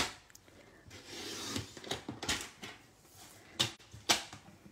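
Plastic paper trimmer being handled: a click, a soft sliding scrape about a second in, then several sharp plastic clicks and knocks as the trimmer is shifted and lifted.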